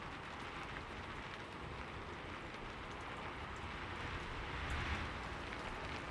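Fire crackling: an even hiss with faint scattered snaps, over a low steady rumble of a cat purring.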